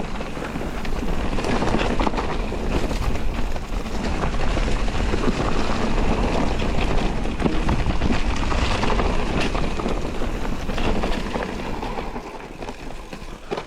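Electric mountain bike being ridden on a trail: a steady rush of tyre noise and rattling knocks from the bike, with wind on the microphone, getting quieter about twelve seconds in.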